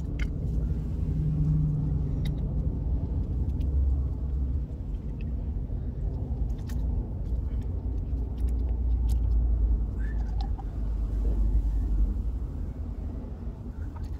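A low, steady rumble that swells now and then, with scattered light clicks and taps as white PVC pipe and elbow fittings are handled and fitted together.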